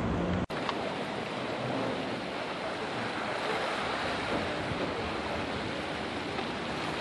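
Steady rushing of wind and sea water along a harbour pier, with no engines or voices standing out. The sound cuts out for an instant about half a second in.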